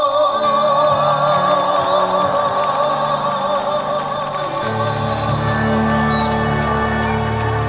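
Male trot singer holding the song's final high note with a wide vibrato over a live band. Bass and chords swell in under the held note about five seconds in.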